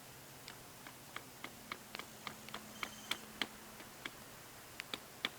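Homemade scrap-metal knife whittling a wooden spear shaft: a string of short, crisp cutting strokes, about three a second, pausing for a moment before a few more near the end.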